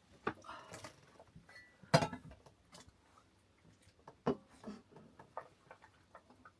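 Scattered light clicks and knocks in a small room, with louder knocks about two seconds in and again about four seconds in.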